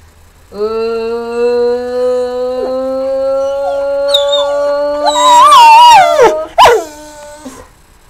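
A long, held note rising slowly in pitch, with a pet dog howling along from about five seconds in, its howl wavering up and down, and a short yelp near the end. The dog is being coaxed into 'singing'.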